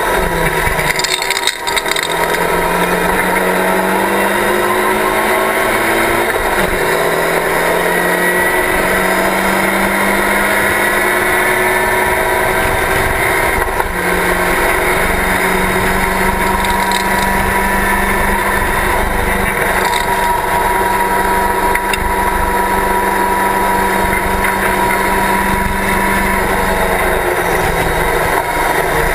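Engine of a Locost race car at racing speed, heard from the open cockpit. In the first few seconds the pitch drops and climbs again through gear changes, then holds high and steady for long stretches, with wind noise throughout.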